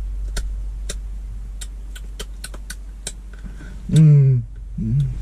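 Scattered sharp clicks and a brief voiced sound about four seconds in from a deaf person signing, over a steady low hum.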